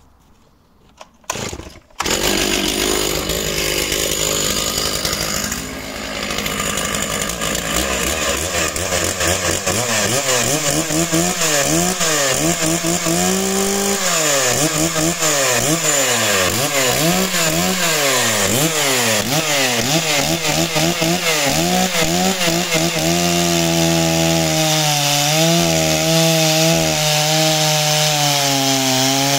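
Stihl MS 660 two-stroke chainsaw starting up about two seconds in, then revved up and down over and over, and from about two-thirds through held at a steady high pitch at full throttle while cutting through a log.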